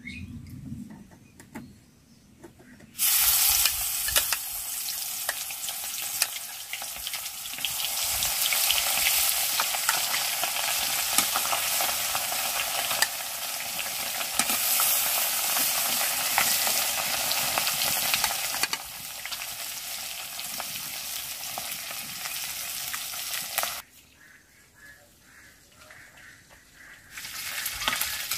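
Koi fish (climbing perch) frying in hot mustard oil in a karahi. A loud sizzle starts suddenly about three seconds in as the fish meet the oil, runs on steadily, breaks off near the end and then comes back.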